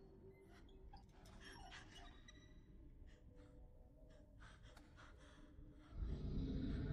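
A woman's quiet, shaky sobbing breaths and gasps. About six seconds in, a louder low rumbling drone starts suddenly.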